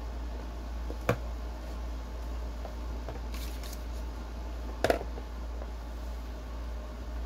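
Light handling of a Microsoft Surface Duo 2 phone: one sharp click about a second in and a quick double click near five seconds, with a soft rustle between. A steady low hum runs underneath.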